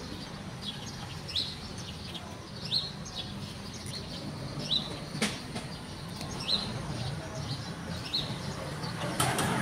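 Small birds chirping: short high chirps about once a second, over a low steady background noise, with a single sharp click about five seconds in.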